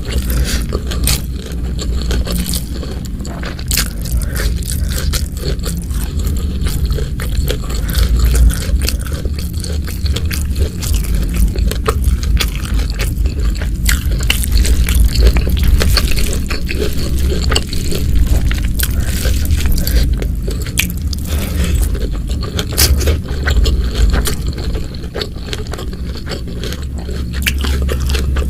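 Close-miked eating: steady chewing and crunching with many small wet mouth clicks, over a steady low rumble.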